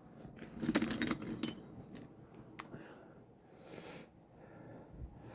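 Small metal hand tools clinking and rattling against each other as they are handled: a cluster of clinks about a second in, then a few single sharp clicks, and a short rustle near the end.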